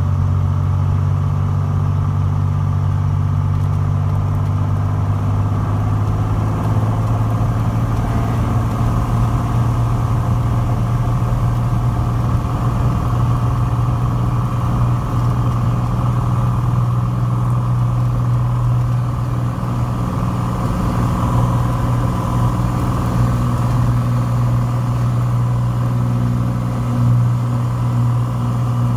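Cessna 182's piston engine and propeller running steadily during the takeoff roll, heard from inside the cabin as a steady low drone.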